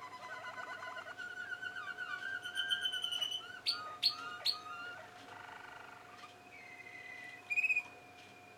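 Young Malinois Waterslager canaries singing: rolling trills and fast repeated phrases, several sharp rising chirps midway, then a long held whistle near the end.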